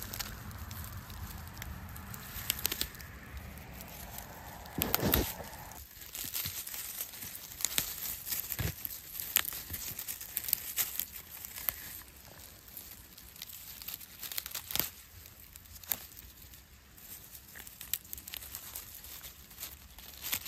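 Rustling and crinkling of picked fiddlehead ferns being handled and sorted, with scattered sharp snaps. A low steady hum runs under it for the first six seconds or so, then stops.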